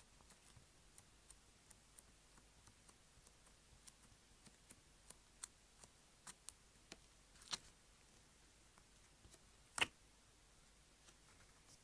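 Slime being worked by hand, making scattered small sticky clicks and pops at irregular intervals, with a louder pop about ten seconds in.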